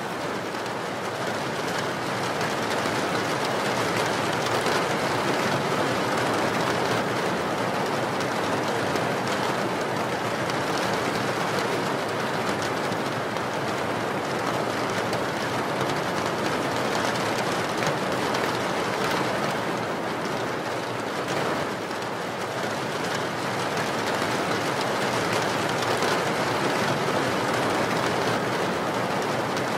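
Steady, even rushing noise with no words or music: the masking sound track of a subliminal audio.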